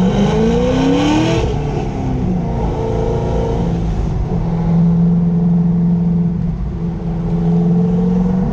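C6 Corvette Z06's 7.0-litre LS7 V8 accelerating, its pitch climbing steeply in the first second and a half, then running at steady revs.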